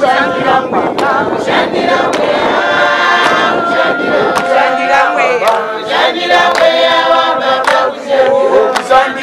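Group of voices singing a hymn together, men and women, with sustained notes that shift in pitch together.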